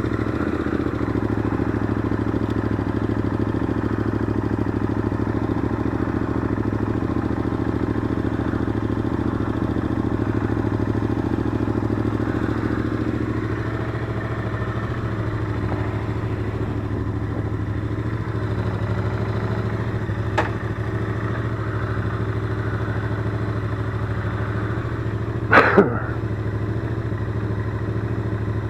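Royal Enfield Interceptor 650's 648 cc parallel-twin engine running steadily at idle just after start-up. A faint click about 20 seconds in and a short, sharp, louder sound about 25 seconds in.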